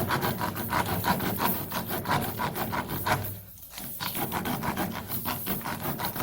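A tire-plug reamer, a spiral rasp, pushed quickly in and out of a nail hole in a car tire, scraping the rubber in rapid repeated strokes with a short break about halfway through. This rasping is the hole being cleaned out and enlarged before the plug goes in.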